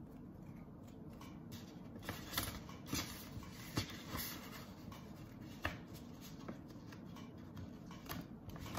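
Paper handling: a stack of mini photo prints and a paper envelope rustling, with scattered light taps and clicks as the pictures are shuffled and pushed into the envelope.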